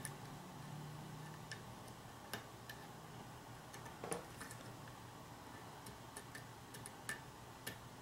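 Faint, irregular small clicks of a hook pick working the pin stacks of a Euro cylinder lock under tension, with the core sitting in a deep false set. The clicks come at uneven intervals, one a little louder about four seconds in.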